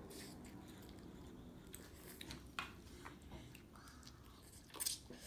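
Children eating instant pancit canton noodles: faint slurping and chewing, with a few light clicks of forks against plates.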